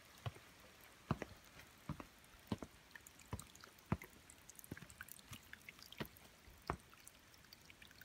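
Footsteps of a hiker climbing leaf-covered trail steps, each step a short faint scuff in dry fallen leaves, about three steps every two seconds.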